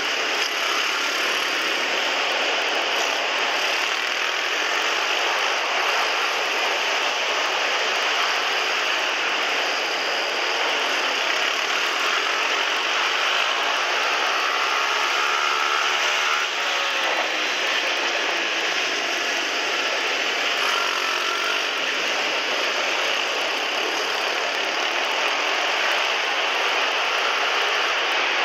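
Small single-cylinder pit bike engine running hard, heard close up from on board, with the revs rising and falling about halfway through.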